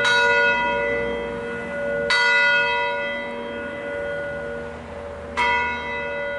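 Felczyński-cast church bell swinging, struck three times with the gaps between strikes growing longer and the level falling: the bell is winding down to a stop. Its hum rings on between strikes.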